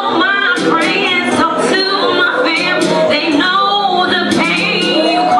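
A woman singing an R&B song over a backing track with a steady beat.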